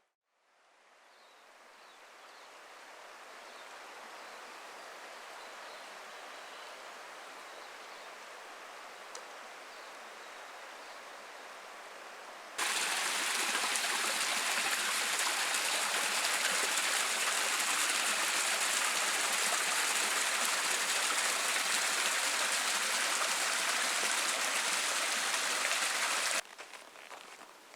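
Mountain river water flowing steadily. It fades in over the first few seconds. About halfway through it cuts abruptly to a much louder, closer rush of water, which cuts back down about a second before the end.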